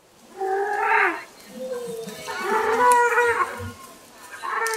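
An animal calling: three drawn-out, pitched calls in a row, the second the longest and the third starting near the end.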